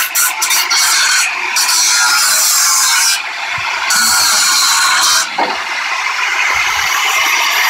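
A tool working the metal of a scrapped furnace coil that is being taken off for scrap: a loud, steady, hissy scraping noise that breaks off briefly a few times.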